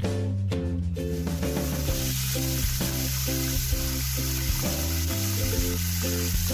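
Chicken fillets sizzling as they fry in a hot pan, a steady hiss that sets in about a second in.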